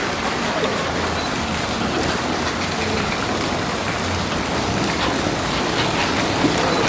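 Steady rushing hiss of running water, with faint voices mixed in.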